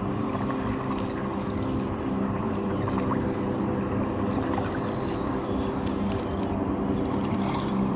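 Canoe paddle dipping and pulling through lake water with small splashes and trickles, over a steady low rumble.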